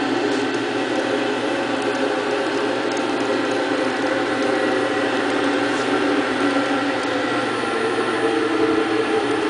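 Broom-handle wood lathe running, its electric motors and feed rollers giving a steady mechanical whir with several steady tones; some of the tones grow louder near the end.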